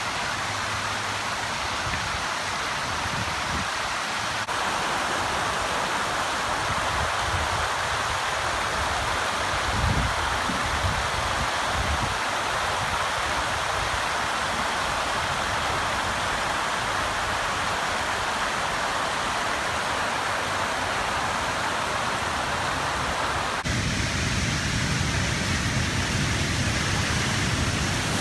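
Steady rush of floodwater pouring over concrete reservoir spillways. The sound shifts slightly at two clip changes, and there are a few low thumps about ten seconds in.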